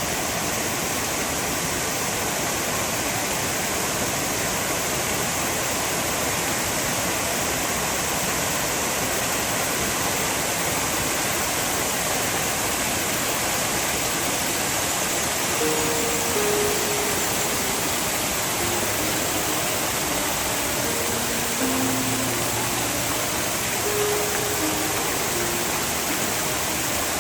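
Shiraito Falls' water pouring: a steady, even rushing. Soft background music notes enter about halfway through and carry on over it.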